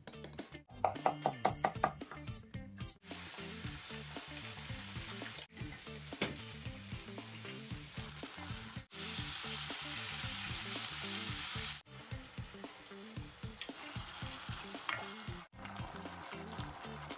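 Eggs being beaten in a bowl with quick rhythmic strokes for about a second. Then food sizzles in a hot frying pan: a rolled egg omelette, then chicken in red sauce. The sizzle breaks off and starts again several times and is loudest in the middle.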